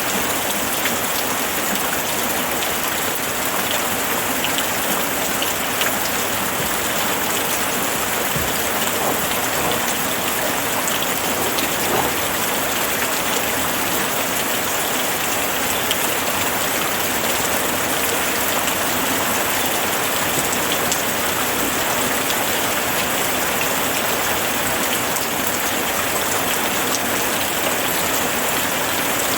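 Steady rainfall, with rain pattering on a surface and many individual drops ticking.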